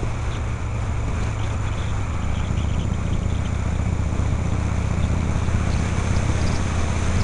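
Harley-Davidson Shovelhead V-twin engine running steadily while riding, heard from a helmet camera with wind rushing over the microphone. It grows slightly louder toward the end.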